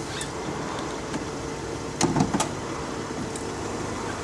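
Mercedes convertible's power soft top folding back, its mechanism humming steadily over the idling engine, with a couple of sharp clunks about two seconds in as the roof frame moves.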